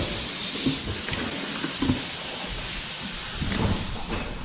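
A steady hiss with a few faint knocks and clicks; the hiss thins out near the end.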